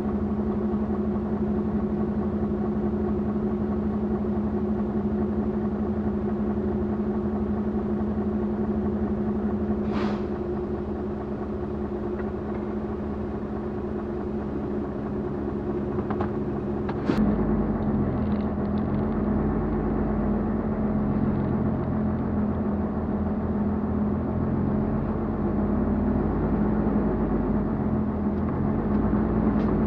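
Expedition truck's engine idling steadily. About 17 seconds in comes a sharp clunk, after which the engine gives more low rumble as the truck creeps forward along the dirt track.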